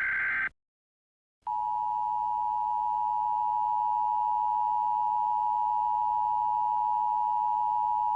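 The end of an Emergency Alert System SAME header data burst stops about half a second in. After a short gap, the EAS two-tone attention signal (853 and 960 Hz sounded together) starts and holds as one loud, unchanging tone.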